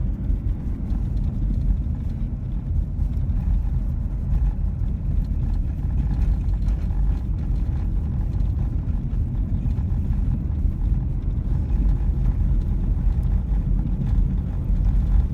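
Steady low rumble of a Jeep driving at an even speed, engine and tyre noise heard from inside the cabin.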